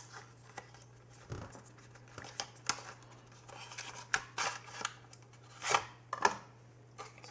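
Small product packaging being opened and handled by hand: scattered clicks, snaps and brief rustles.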